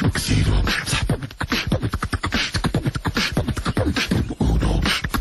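Rapid beatbox-style vocal percussion: fast clicks and hisses over deep bass thumps, with no words.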